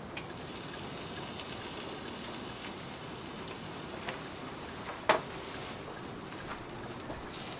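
Steady low hiss with a few light ticks and one sharper click about five seconds in.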